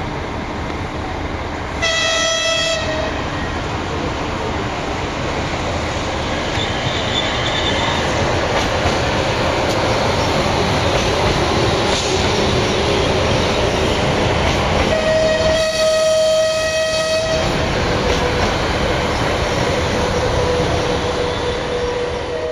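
ČD InterPanter electric train running through the station, with a steady rumble of wheels on rails that grows louder as it passes. Its horn sounds a short blast about two seconds in, and a longer blast of about two seconds later on.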